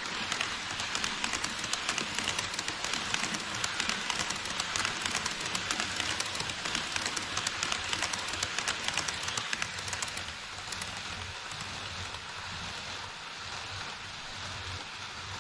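HO-scale E5 series Shinkansen model train running on KATO Unitrack over a plastic truss bridge: a dense, fast rattle of wheels clicking over the rail joints, loudest for the first ten seconds and then dropping off as the train moves away.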